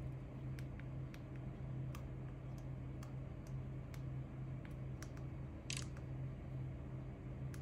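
Sparse light clicks and taps, with one brief scrape, from small phone parts and tools being handled, over a steady low hum.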